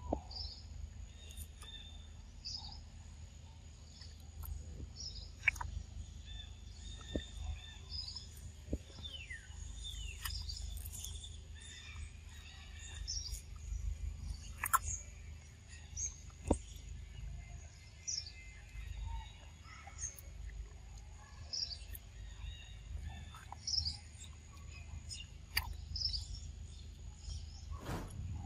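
Outdoor ambience of birds chirping in short repeated calls every second or two, over a thin steady high whine and a constant low rumble, with a few sharp clicks scattered through.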